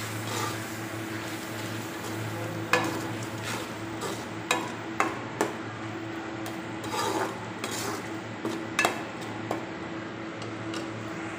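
Metal slotted spoon stirring an onion-and-spice masala frying in oil in an aluminium pot: a sizzle under the scraping, with repeated sharp clinks where the spoon strikes the pot. The dry spices are being fried into the masala until the oil separates.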